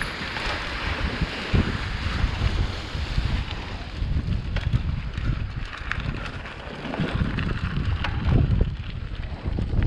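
Wind rushing over an action camera's microphone while riding a bicycle, with scattered knocks and rattles throughout.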